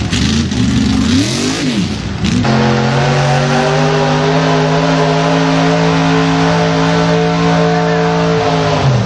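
A motor or engine revving up and down, then holding a steady high-pitched drone for about six seconds before its pitch drops near the end.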